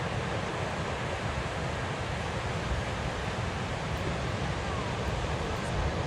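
Ocean surf breaking and washing up the beach, a steady rush of water, with wind buffeting the microphone as a low fluttering rumble.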